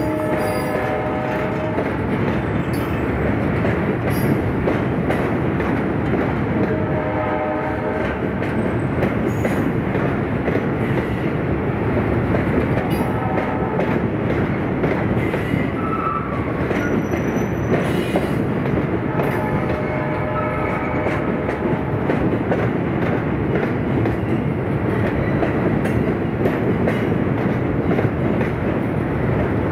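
A freight train rolling past close by: a steady rumble of steel wheels on the track, with clicks from rail joints and short squeals that come and go.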